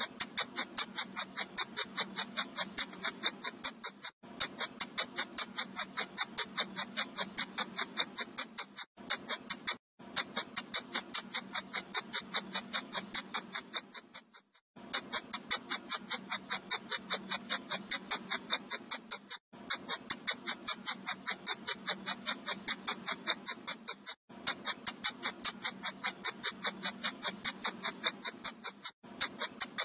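Electronic mosquito-repellent sound: a fast, even train of high-pitched beeping pulses, breaking off briefly every four to five seconds and starting again.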